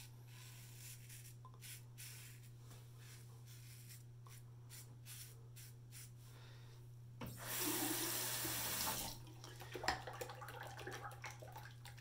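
GEM Pushbutton single-edge safety razor scraping through lathered stubble in a run of short, irregular strokes. Then a tap runs for about two seconds, followed by a few small clicks.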